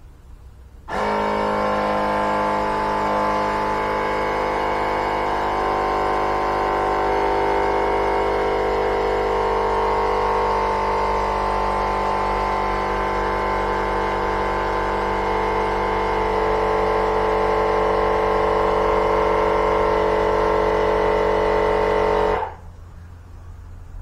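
Portable electric tire inflator running steadily, pumping air into a lawn tractor tire that has just been filled with Slime sealant. It starts abruptly about a second in and shuts off shortly before the end.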